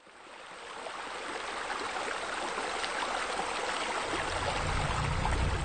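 Hot tub water rushing and bubbling, fading in over the first second; a low rumble from the jets joins about four seconds in.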